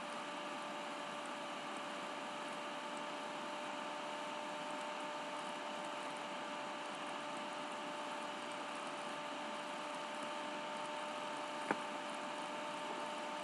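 Room tone: a steady hiss with a faint steady whine or hum, the background noise of a voice recording. A single sharp click near the end.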